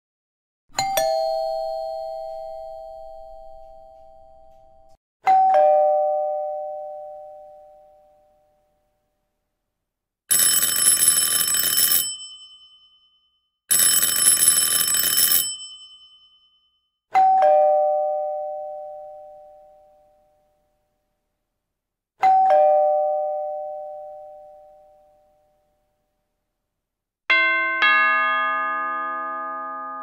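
A run of different doorbell sounds, one after another. Single chime strikes ring out and fade slowly, twice at the start and twice more after the middle. Between them come two harsh, buzzing electric bell rings of about a second and a half each that cut off abruptly. Near the end there is a fuller chime of several notes, struck in two quick steps, that rings on.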